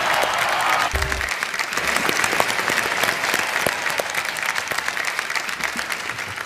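Studio audience applauding, a dense patter of clapping that slowly dies away, with a short low thud about a second in.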